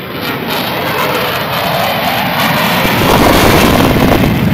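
F-16 fighter jet's engine noise as the jet flies a tight turn past the crowd, a dense rushing sound that grows steadily louder and is loudest near the end.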